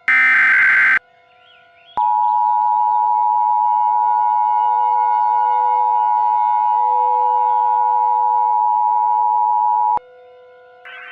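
EAS (Emergency Alert System) alert tones. The last SAME header data burst sounds as a one-second electronic screech. After a short gap, the two-tone attention signal (853 Hz and 960 Hz together) holds steady for about eight seconds and then cuts off abruptly. Faint steady background tones sit underneath.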